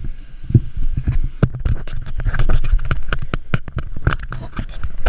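Dense, irregular crackling and knocking close on the camera's microphone, over a low rumble; it thickens about a second and a half in.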